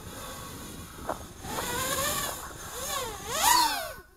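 Racing quadcopter's four Skystars 2306 2500KV brushless motors spinning 5043 propellers with a whine as it lifts off and climbs, its pitch rising and falling with the throttle. It swells loudest about three and a half seconds in, then cuts off near the end.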